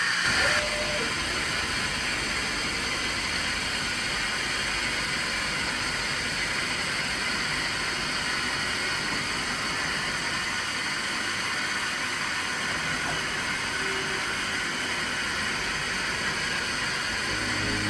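A steady, unchanging hiss with a faint machine hum from a Walter Helitronic Power CNC tool grinding machine running.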